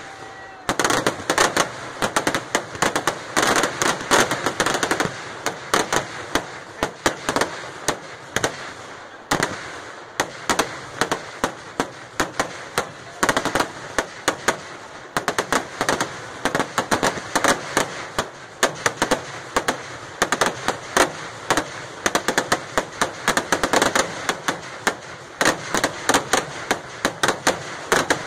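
Kerala temple-festival fireworks (vedikettu): firecrackers going off in a dense, rapid stream of sharp bangs. The bangs come many per second and never stop, easing only briefly about a third of the way in.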